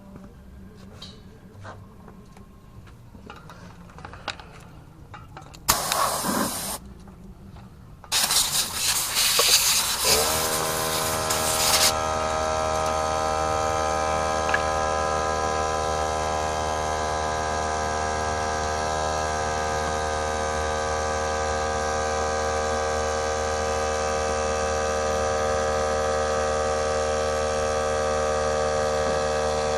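Murray mower's Briggs & Stratton engine being cranked with two loud attempts, the first about six seconds in and the second from about eight seconds. It catches about ten seconds in and settles into steady running: after the no-start fix it now starts and runs.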